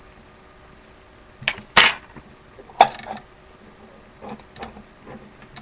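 A few sharp clinks and knocks of a glass jar and cutlery being handled, the loudest about two seconds in.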